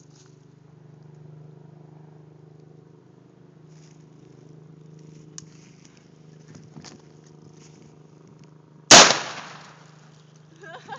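A single shotgun blast about nine seconds in, sudden and very loud, with a tail that dies away over about a second. A steady low hum and a few faint ticks lie under the rest.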